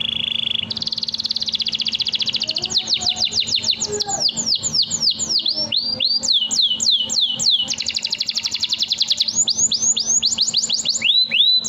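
Domestic canary singing a long unbroken song: fast buzzing trills alternating with runs of quick, high whistled notes that each sweep downward, the rapid-fire 'nembak' style.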